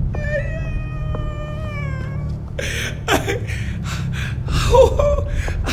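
A man's long wail of pain, slowly falling in pitch, then sobbing and gasping breaths, over a steady low hum.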